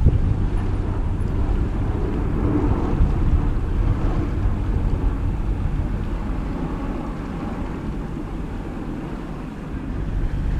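Wind buffeting the microphone over the steady low rumble of a widebeam boat's engine cruising along the river, dipping a little in level shortly before the end.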